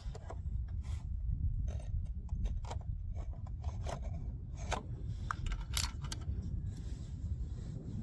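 Handling noises from a bolt-action rifle between shots: a string of small irregular clicks, scrapes and rubs, with no shot fired, over a steady low rumble.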